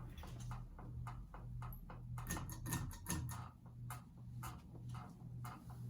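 Evergo 5E-5LW five-blade ceiling fan running on medium speed: a steady motor hum that swells and fades about twice a second, which a fellow collector puts down to the design of the motor. Over it comes a run of irregular clicks and ticks, the sound of the wobbling fan's canopy rubbing against the ceiling.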